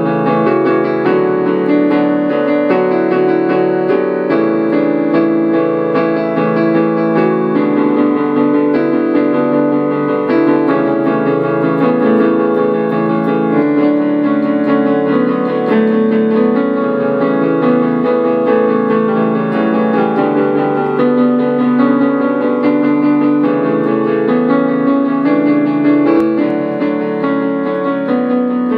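Piano playing a pop song arrangement continuously, with full chords and a moving melody.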